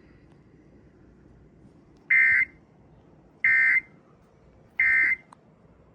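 Emergency Alert System end-of-message signal: three short, identical bursts of the warbling SAME data tone, each under half a second and about a second and a half apart, marking the end of a severe thunderstorm warning broadcast.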